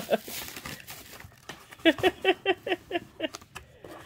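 Faint rustling of plastic wrapping around a plush toy, then a woman's voice in a quick run of short falling sounds, about six a second, lasting about a second and a half.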